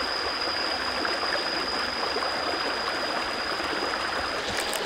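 Stream water rushing steadily, with a thin high whine held over it and a few faint clicks near the end.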